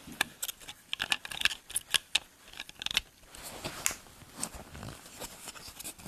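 Light, irregular plastic clicks and taps from a photoelectric smoke detector head being handled, its cover being pushed to snap it back into place.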